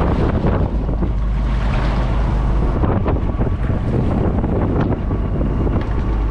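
Wind buffeting the microphone on the deck of a fishing boat under way, over the steady rush and splash of the sea along the hull.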